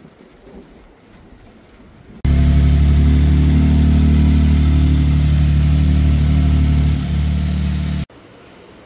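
Toyota Tundra's twin-turbo 3.5-litre V6 running at a steady idle. It comes in abruptly about two seconds in and cuts off sharply about a second before the end.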